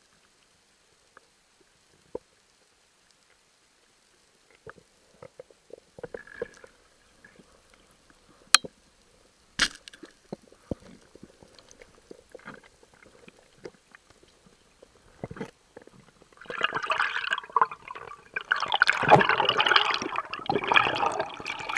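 Faint underwater clicks and knocks, with a sharp click about eight and a half seconds in and another a second later, then from about sixteen seconds a loud rush of air bubbles streaming past.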